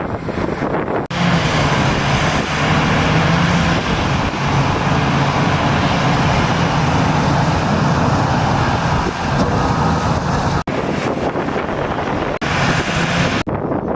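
Engine of heavy earthmoving construction machinery running steadily under wind buffeting on the microphone. The sound breaks off sharply a few times.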